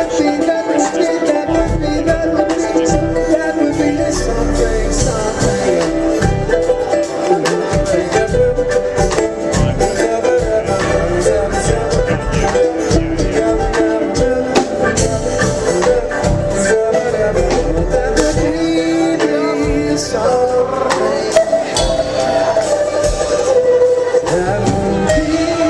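Live acoustic band playing an instrumental passage, with quick plucked-string runs over sustained chords and a steady beat.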